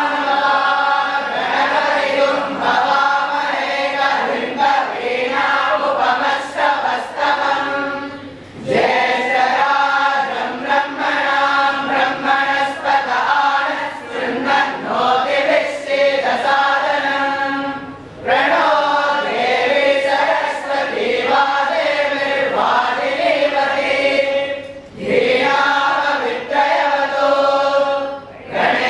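A large group of boys chanting together in unison, in long phrases with brief pauses between them.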